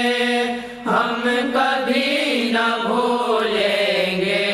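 A voice singing an Urdu devotional song in long, held, wavering notes. There is a brief pause about a second in before the next phrase begins.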